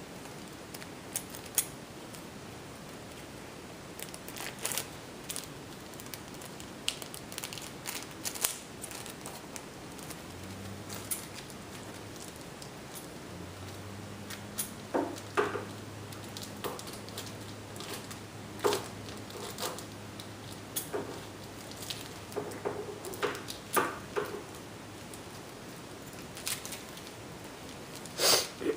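Scissors snipping and working at the thick zip-lock strip of a plastic bag, irregular snips and plastic crackles spread out with pauses, the plastic hard to cut. A steady low hum runs underneath from about ten seconds in until shortly before the end.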